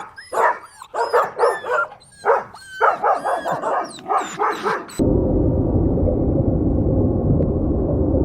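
A dog barking and yipping in short, pitched calls, about two a second. About five seconds in, this cuts off abruptly to a steady rumbling noise.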